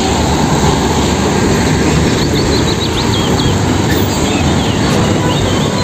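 Road traffic passing close by: trucks and motor scooters on a two-lane road, giving a steady engine and tyre noise. A few faint bird chirps sound over it about two seconds in and again near the end.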